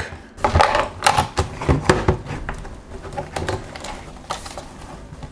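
Batteries being fitted into a Casio VL-1's plastic battery compartment and the plastic case handled: a quick run of sharp clicks and knocks over the first two seconds or so, then quieter handling.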